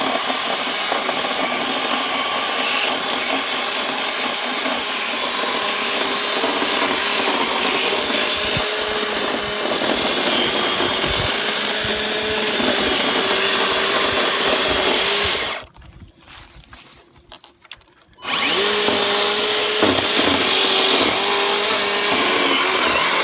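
Kobalt chainsaw running and cutting into a tree trunk, its motor pitch shifting a little under load. About two thirds of the way through it stops for a couple of seconds, then starts cutting again.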